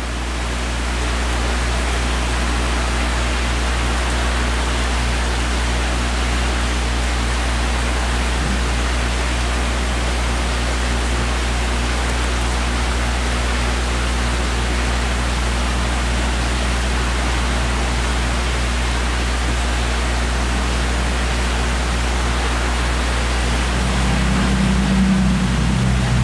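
Aquarium water circulation running: a steady rush of flowing water over a low pump hum. The hum grows a little stronger near the end.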